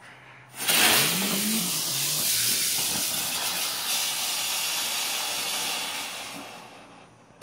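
Jumbo ground bloom flower firework spinning on the ground and spewing sparks: a loud, steady hiss that ignites about half a second in and fades out over the last second or so.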